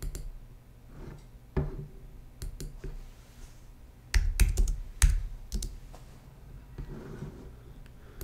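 Typing on a computer keyboard: a few scattered key clicks, then a quick run of keystrokes about four seconds in, as a short search is typed and entered.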